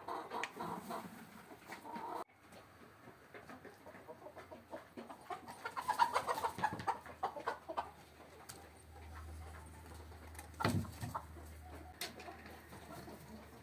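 Domestic chickens clucking in bursts of short, quick calls, loudest about halfway through. A single sharp knock comes near the end.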